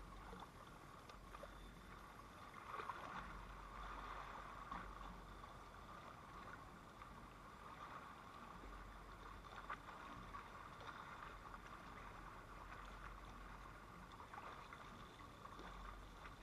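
Faint, steady wash of water moving at the shoreline, with a few faint clicks over it.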